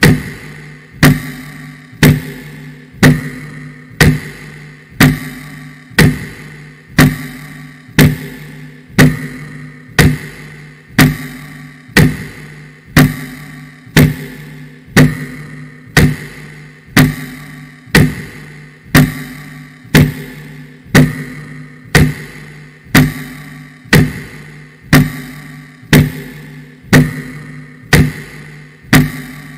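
Slow, heavy clock ticking, one loud tick about every second, each ringing out with a low hum before the next.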